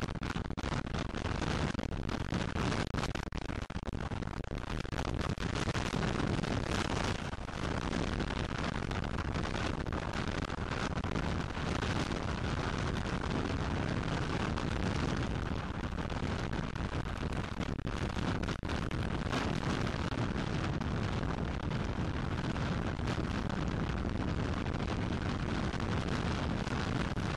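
Wind rushing and buffeting hard over the microphone of a dirt bike riding at speed, mixed with the bike's engine noise, steady and without a break.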